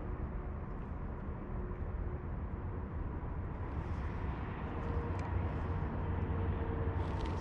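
Steady low outdoor rumble, with a faint steady hum coming in over the second half.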